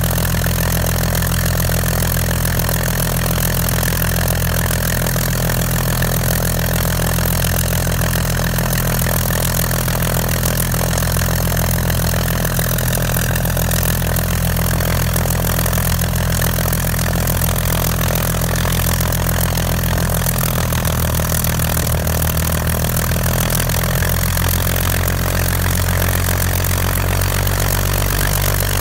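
Supermarine Spitfire FR XIV's Rolls-Royce Griffon V12 engine idling steadily on the ground, its five-bladed propeller turning, with a deep, even drone and a slight change in pitch a little past the middle.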